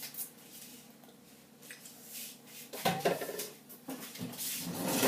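Metal cutlery clinking and knocking as a spoon is fetched in a kitchen: scattered clicks, a sharp clatter about three seconds in and a longer rattle near the end.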